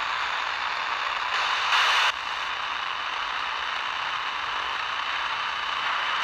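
Panabox spirit box sweeping through radio stations: a steady hiss of static from its speaker, louder for a moment at about one and a half to two seconds in.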